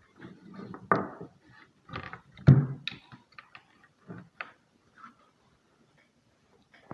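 Irregular clicks and knocks of wires and terminal connectors being handled and fitted, the loudest knock about two and a half seconds in.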